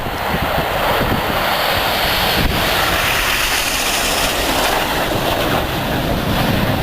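Jet noise from the Red Arrows' formation of BAE Hawk T1 jets flying past, a steady, loud rush that swells slightly over the first second, with wind buffeting the microphone.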